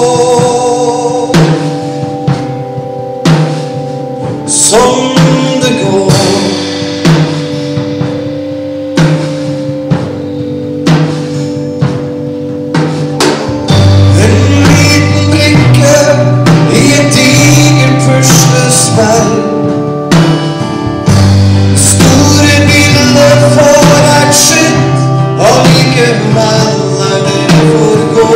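Live band playing a song: male vocals over acoustic and electric guitar, keyboard and a drum kit with a steady beat. About halfway through the music grows louder, with a much fuller low end.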